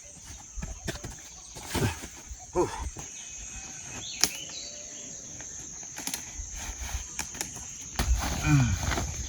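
Rustling and crinkling of a camping tent being folded, with a sharp click about four seconds in, over a steady high-pitched insect drone.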